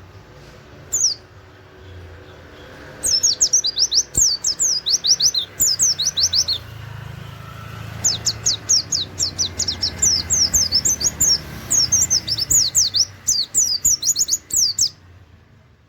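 Pleci (white-eye) singing in rapid volleys of high, quickly falling chirps, the fast "nembak" song: a short call about a second in, a burst from about three seconds, and a longer run from about eight seconds until near the end.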